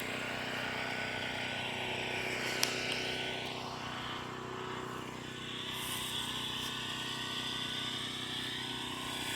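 A steady low motor-like hum with a faint high buzz over it, and one light click about two and a half seconds in.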